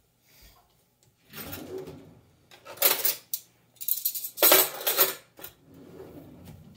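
Metal kitchen utensils clattering and clinking as someone rummages through them to pull out a slotted spoon, in a few loud bouts from about a second in.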